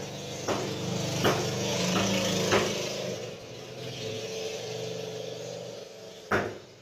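A cleaver chopping duck pieces on a wooden chopping block: four sharp chops, three in the first three seconds and one near the end. Under them runs the steady hum of a vehicle engine, which fades after about three seconds.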